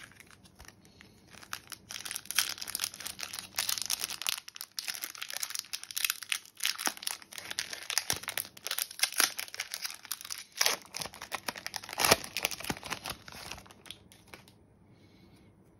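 Shiny foil wrapper of an Upper Deck Marvel Annual trading card pack crinkling and tearing as it is opened by hand, a dense crackle of sharp clicks that stops about a second before the end.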